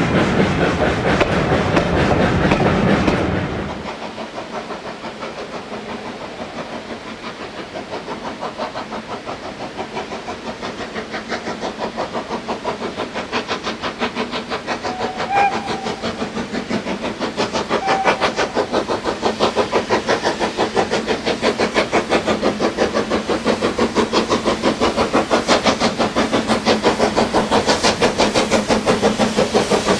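Passenger coaches rolling past close by, wheels clicking over the rail joints, until the sound cuts off about three seconds in. Then a steam locomotive chuffing in the distance, its exhaust beats steady and growing louder as it approaches, with a couple of brief whistle notes midway.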